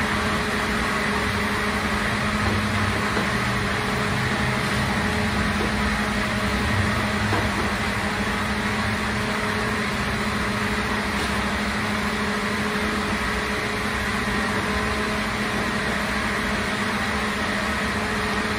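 Steady hum of bakery machinery, a constant low drone with a faint high whine over it.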